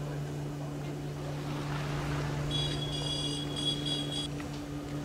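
Outdoor street crowd ambience under a steady low hum. About two and a half seconds in, a high-pitched ringing comes in several quick rings for nearly two seconds.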